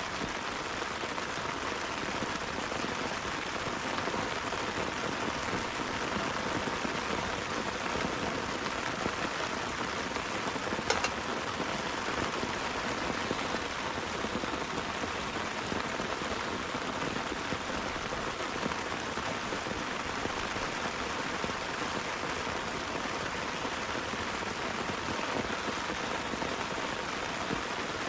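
Heavy rain falling steadily, with a single sharp click about eleven seconds in.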